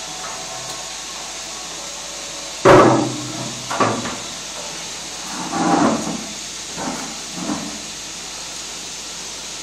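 Steady hiss of milking-parlour machinery, broken by five loud knocks, the loudest about three seconds in.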